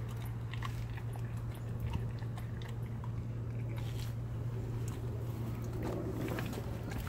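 German Shepherd chewing and biting on a piece of raw chicken, with scattered small crunches and clicks of teeth on bone, over a steady low hum.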